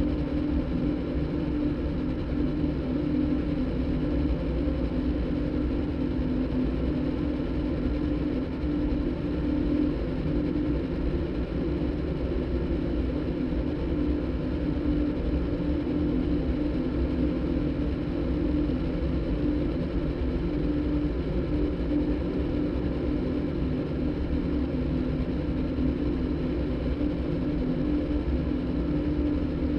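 Electronic soundtrack drone made from a motorbike's engine sound cross-synthesized with a đàn bầu (Vietnamese monochord) concert recording: a steady low hum holding one pitch, with no breaks.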